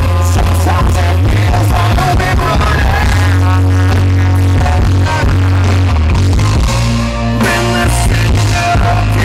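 Live rock band playing loud: a male lead voice sings over electric guitar, bass and drums, recorded from the crowd with heavy distortion.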